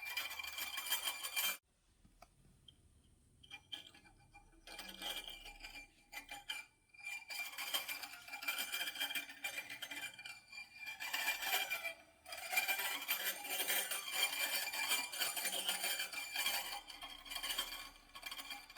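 Guzheng strings sounded with unconventional techniques, giving a dense, bright metallic clinking and scraping instead of plucked notes. It stops briefly about two seconds in, then resumes with a couple of short breaks.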